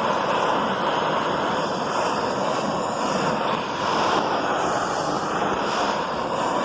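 Hand-held butane gas torch burning with a steady rushing hiss of flame, heating aluminium pieces so the Durafix zinc-aluminium filler rod can melt and flow.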